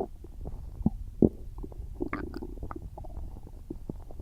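A human stomach gurgling as it digests a big meal. It makes a run of short, irregular pops and gurgles, with the sharpest pop about a second in and a longer bubbling stretch around the middle.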